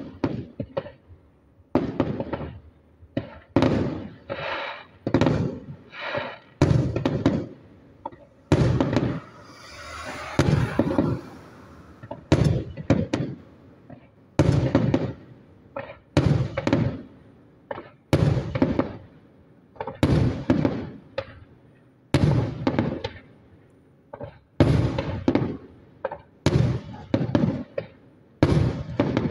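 Aerial fireworks display: a steady run of shell bursts going off as sharp bangs, about one or two a second, each trailing off as it dies away. About nine seconds in there are a couple of seconds of hissing crackle.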